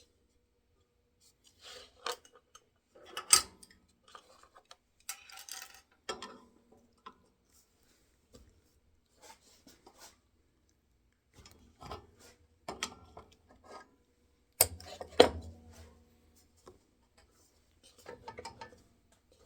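Metal clinks, knocks and scrapes at irregular intervals as a table saw blade and the tools for changing it are handled, with sharper knocks about three seconds in and again near fifteen seconds.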